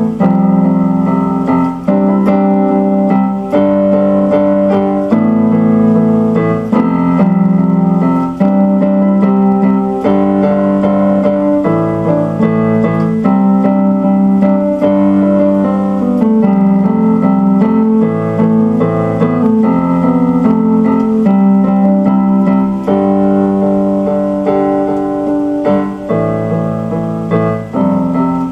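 Electronic keyboard with a piano voice playing sustained chords that change every second or two.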